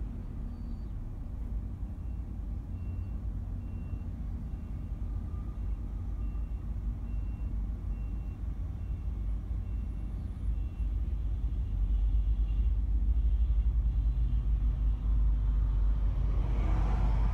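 Steady low rumble of road traffic and idling engines, heard from inside a car stopped in traffic. A faint high beep repeats a little under once a second for the first half, and the rumble grows louder about two-thirds of the way through, ending in a rush from a vehicle passing close by.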